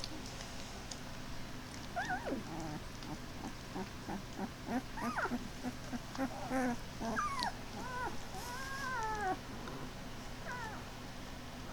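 Ten-day-old Great Pyrenees puppies whimpering and squealing: a string of short, high cries that rise and fall, starting about two seconds in, with one more near the end. A steady low hum runs underneath.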